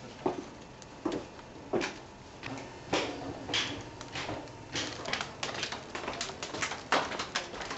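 Footsteps of several people walking down stone steps and along paving, a string of irregular knocks and scuffs at walking pace that comes thicker and closer together in the second half.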